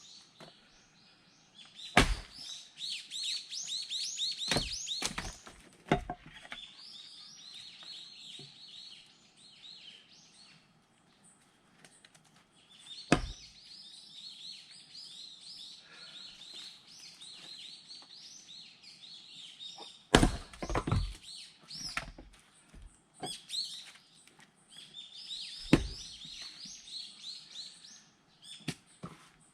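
Sharp, irregular blows of a splitting axe on firewood, about six strikes plus a short cluster of knocks and clatter. Behind them runs rapid, repeated high-pitched chirping from birds.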